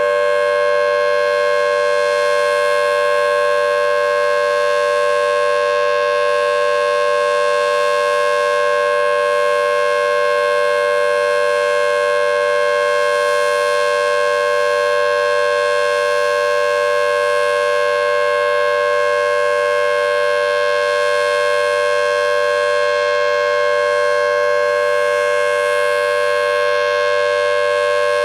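Federal Signal Thunderbolt 1000T civil defense siren sounding its steady alert tone, recorded in front of the horn. It holds one loud pitch with no rise and fall, because its rotator is not turning.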